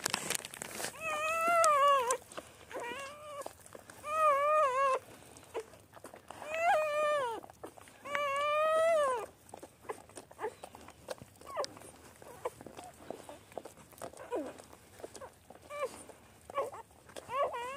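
Newborn puppies crying: a run of high, wavering squeals about a second each, five loud ones in the first nine seconds, then shorter, fainter cries with scattered small clicks while the mother dog licks them just after whelping.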